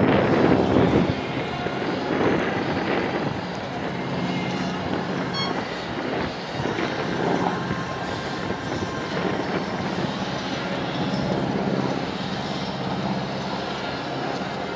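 North American SNJ/T-6 Texan's Pratt & Whitney R-1340 Wasp radial engine droning steadily as the plane flies aerobatics overhead. Wind buffets the microphone loudly for the first second.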